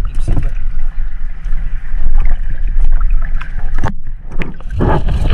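A boat's engine hums steadily while a fine gill net is hauled in by hand over the wooden gunwale, with rustles, clicks and knocks of the wet net and the fish caught in it. A louder rush of noise comes near the end.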